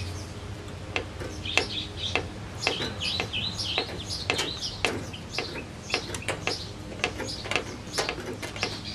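Thin trailer sheet-metal skin being bent back and forth by hand, giving irregular clicks, crinkles and short high squeaks as it fatigues and tears along a knife-scored line.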